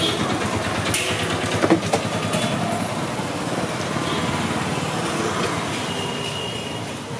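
Steady street traffic rumble and din, with a couple of sharp clicks about a second in from a metal spatula on the flat griddle.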